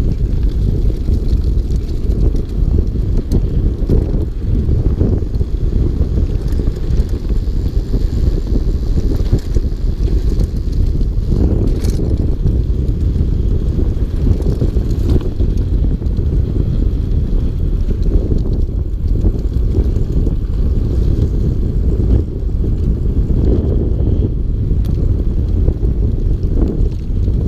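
Wind buffeting the microphone of a camera riding on a mountain bike descending a dirt fire road, a steady low rumble mixed with tyre noise, with a few faint knocks as the bike goes over bumps.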